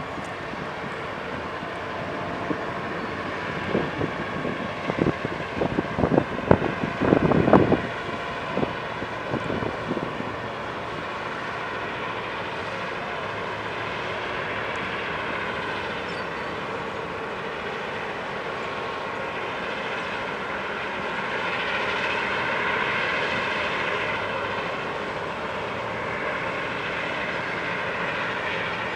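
Steady engine drone with a gently wavering pitch, swelling a little near the end. A flurry of gusty wind thumps on the microphone comes about four to eight seconds in.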